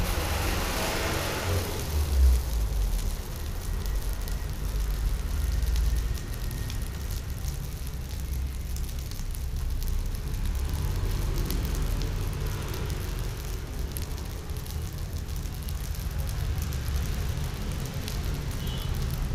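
Gas burner running under a steel wok of frying rice, a low steady rumble. A spatula stirs and scrapes the rice in the wok during the first couple of seconds.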